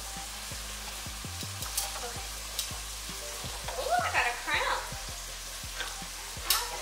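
Steaks frying in a pan give a steady sizzle, broken by a few sharp metallic clicks as a can of corn is opened by hand with a can opener.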